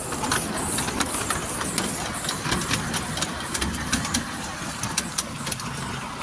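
Miniature steam locomotive running past close by with a passenger car: a steady low rumble, a high hiss near the start, and many sharp, irregular clicks of wheels and running gear on the small-gauge track.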